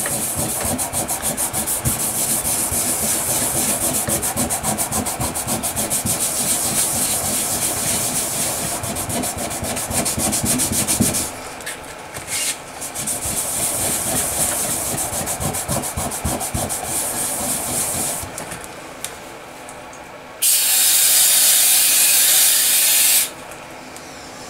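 Scotch-Brite pad scrubbing hard carbon off a Kohler KT17 piston crown in rapid back-and-forth strokes, with a short pause about eleven seconds in, stopping at about eighteen seconds. Near the end, an aerosol can of carburetor cleaner sprays in a steady loud hiss for about three seconds.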